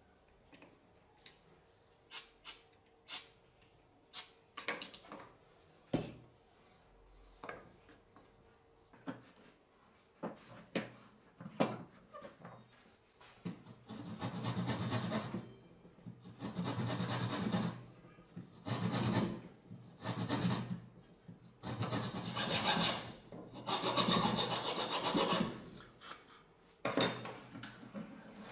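A few light clicks and taps of small wooden parts being handled, then a fine-toothed hand saw cutting through a small piece of 5 mm solid wood clamped in a wooden vise, in about eight slow back-and-forth strokes.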